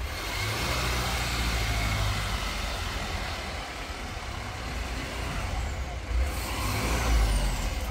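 A heavy diesel truck engine running steadily as a low rumble, under a continuous hiss of outdoor yard noise.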